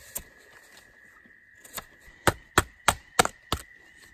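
A fixed-blade knife chopping into the end of a green sapling, about six sharp strokes in quick succession in the second half, sharpening the point of a frog gig spear. A steady high insect drone runs underneath.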